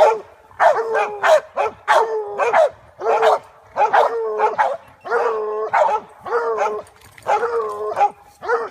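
Hog dogs barking over and over at a bayed-up hog, loud pitched barks coming about one to two a second.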